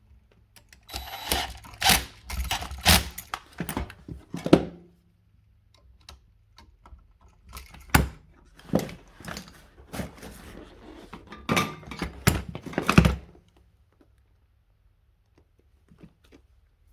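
Irregular clicks, taps and clunks of hand tools and wire being handled while wiring electrical receptacles, in two busy spells with a quiet pause between.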